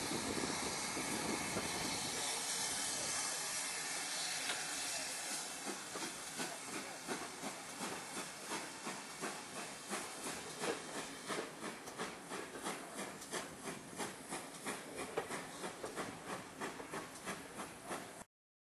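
Steam locomotive and train: a steady hiss of steam, then a regular rapid beat of about two to three strokes a second as the train moves. The sound cuts off suddenly near the end.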